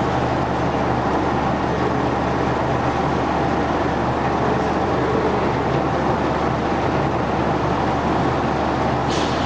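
Low-profile vibratory separator (MSC 36 sifter) running steadily while screening washing powder: an even, unbroken machine noise over a low steady hum, with a brief scratchy sound near the end.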